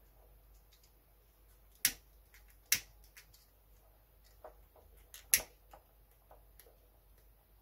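Sharp clicks from hand work on small wires: three loud ones about two, three and five and a half seconds in, with fainter ticks and light handling between.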